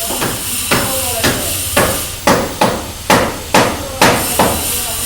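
Hammer blows on a building site: about ten sharp strikes at roughly two a second, over a steady background hiss.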